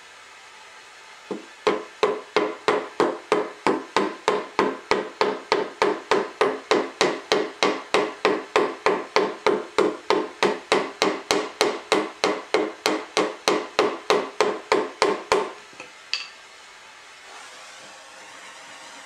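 Steady hammer blows on the edge of a torch-heated recycled synthetic decking board, about three a second for some fourteen seconds, each with a short ring. Near the end a propane torch starts up with a steady hiss.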